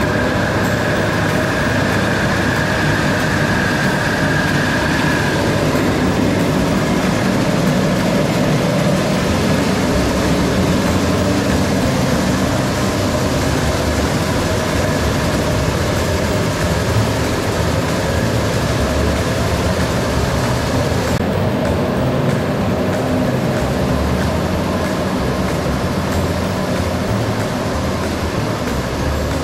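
Rice-polishing plant running: the polisher and the blower of its bran-collecting system, with rice bran being blown through the flexible duct to the bran tank, a loud steady mechanical din. A high steady whine sits on top for the first five seconds or so.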